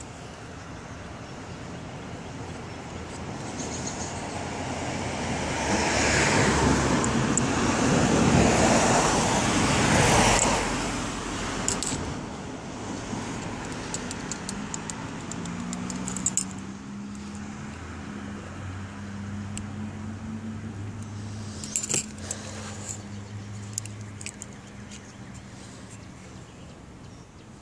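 Handling noise: a plastic bag rustling and crinkling, loudest in the first third, with scattered light clicks and knocks. A low steady hum runs through the middle stretch.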